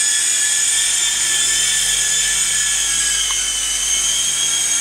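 Small electric RC helicopter (HeliZone ThunderBird) in flight: a steady, high-pitched whine from its electric motors and spinning rotor blades, the pitch sagging a little past the middle and coming back up.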